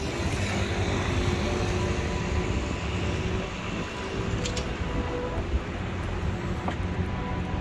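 Steady outdoor city noise: a low rumble of traffic with faint scattered tones over it, and a moped passing at the start.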